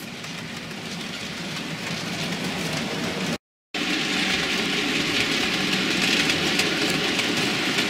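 OO-gauge model freight train of Hornby TTA tank wagons running round the layout: a steady rolling rumble of wheels on track and the locomotive's motor, slowly getting louder, with faint ticks as the wheels cross rail joints. The sound cuts out for a moment a little under halfway through.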